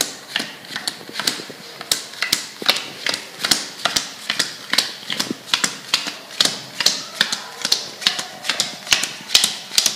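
Playing cards dealt one at a time onto a hard tabletop, each card landing with a sharp snap, about two to three a second in an even, unbroken run.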